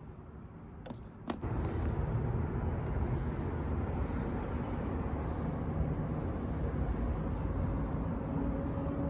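Two sharp clicks about a second in, then the vintage Stanley 557 bench grinder's electric motor starts and runs steadily.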